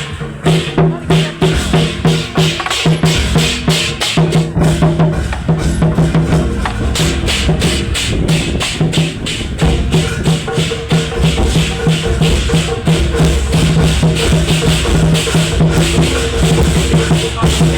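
Music with a quick, regular drum beat over sustained low tones, running throughout.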